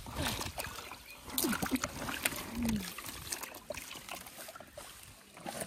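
A fish splashing in a shallow plastic basin of water, with scattered sharp splashes and knocks, and a few short low vocal sounds in the first half.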